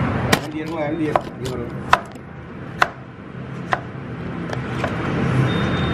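Knife chopping bell peppers on a plastic cutting board: a handful of sharp, irregular knocks, the last few fainter and further apart.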